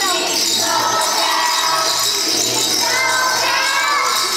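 Small handheld jingle bells being shaken by a group of young children, jingling continuously over a song.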